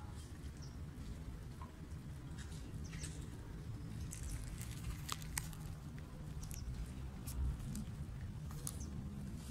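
Stray cats crunching dry kibble: irregular small crunches and clicks, busiest in the middle, over a low steady rumble.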